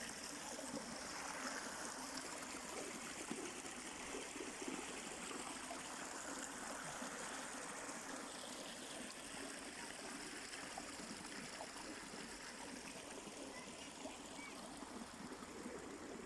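A stream of water flowing steadily.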